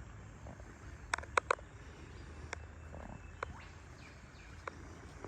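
A few sharp, brief clicks over faint outdoor ambience: three in quick succession about a second in, then single ones spaced a second or so apart.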